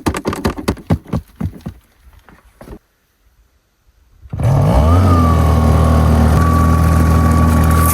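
A rapid clatter of knocks and rattles, then a brief silence; about four and a half seconds in, a dry washer's small gasoline engine starts, rises quickly in pitch and settles into a steady run with a high whine from its blower.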